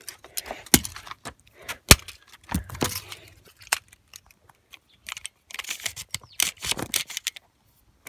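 Hard plastic knocks and clattering from a broken X-Shot toy blaster being struck and handled: two sharp knocks about a second apart, then bursts of rattling clicks around three seconds in and again between five and seven seconds in.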